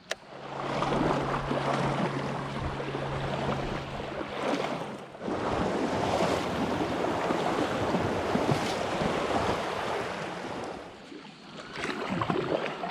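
Rushing noise of moving water and wind around a kayak on a river, in two long surges, with a low steady hum through the first five seconds.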